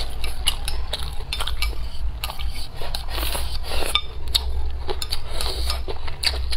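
Wooden chopsticks clicking and scraping against a ceramic bowl as rice is scooped, with close-miked chewing, over a steady low hum.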